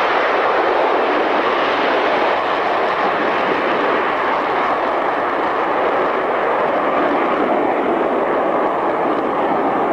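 BAC Concorde's four Rolls-Royce/Snecma Olympus 593 turbojets running at takeoff power as the aircraft lifts off and climbs: a loud, steady jet roar. The higher hiss thins a little over the last few seconds as the aircraft draws away.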